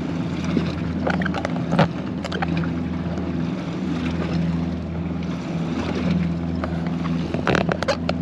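Boat outboard motor idling steadily under wind and water noise, with a few short clatters about two seconds in and near the end.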